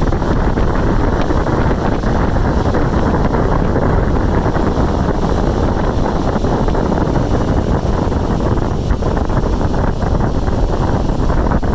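Gas-fired HVAC unit running in heating mode, heard close up at its heat exchanger: a loud, steady rush of blowing air that buffets the microphone.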